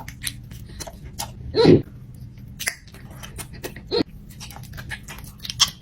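A man eating butter: wet mouth clicks and smacking from chewing throughout, with a short voice-like grunt about a second and a half in and a smaller one near four seconds.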